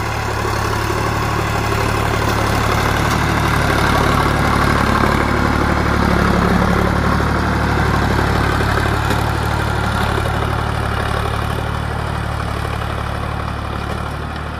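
Sonalika DI 745 tractor's three-cylinder diesel engine running steadily under load, pulling a disc plough through the soil. It grows louder through the middle and eases off near the end.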